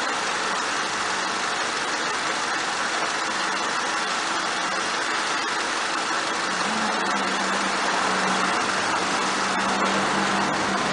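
2001 Honda Civic's engine idling steadily. A low steady hum joins about two-thirds of the way in and grows louder.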